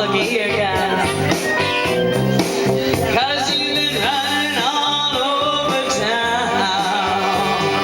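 A singer performing with a band, the voice gliding over a steady run of low instrumental notes.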